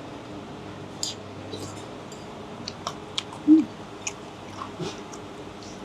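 Eating sounds from a bowl of noodle soup: chewing with scattered small clicks and ticks. A brief low hum-like voice sound, falling slightly, comes about three and a half seconds in and is the loudest moment.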